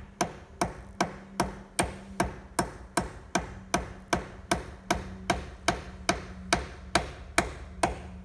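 Hammer striking nails in a steady, even run, about two and a half blows a second, each blow with a short ring after it. A steady low hum runs underneath.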